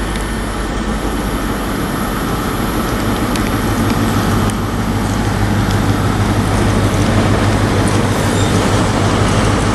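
Diesel engine of a Class 43 HST power car running at the platform: a steady low drone that grows gradually louder through the second half.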